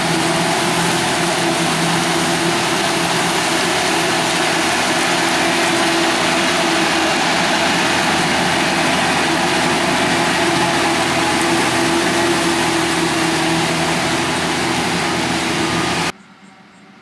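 Heavy farm machinery running steadily at working load, a loud continuous engine drone with a steady hum underneath, cutting off suddenly near the end.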